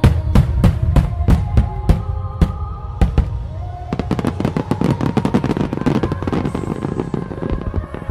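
Fireworks display: aerial shells bursting in a string of loud booms, then from about four seconds a dense, rapid crackle of many small reports. Music plays underneath.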